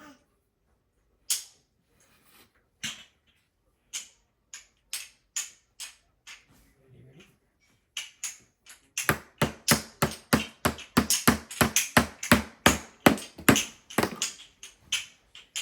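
A small hammer striking a frozen ice egg: single knocks a second or so apart at first, then a fast run of blows, about three or four a second, from about nine seconds in.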